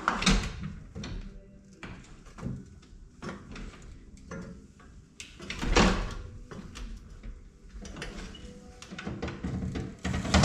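Irregular knocks and clunks of a person climbing down from a tractor cab: boots on the steel cab steps and hands and the door against the cab frame, with a heavier thump about six seconds in.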